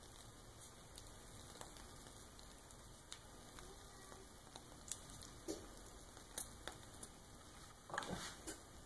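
Very faint handling noise from a plastic piping bag of buttercream, with scattered soft clicks and rustles and a slightly louder rustle near the end, over quiet room tone.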